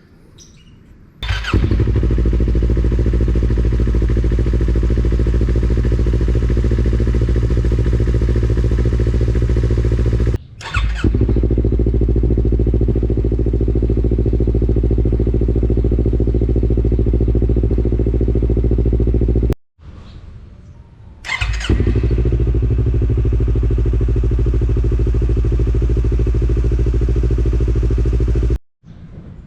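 Yamaha MT-25's parallel-twin engine running at a steady speed through a WRX GP3 K3 SE full-system aftermarket exhaust. It is heard in several cut-together clips: it starts abruptly about a second in, breaks off and resumes near 10 and 20 seconds, and is quieter for a moment around 20 seconds.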